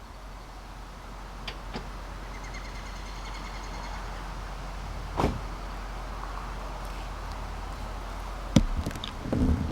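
Car door handling: a couple of light clicks, a short run of quick ticks about two and a half seconds in, a single thump about five seconds in, and sharper knocks near the end, over a steady low hum.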